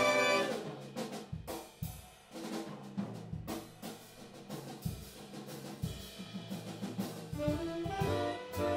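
Live big band jazz: a full brass chord at the start dies away, leaving the drum kit and bass playing on their own for several seconds, before the horns come back in near the end.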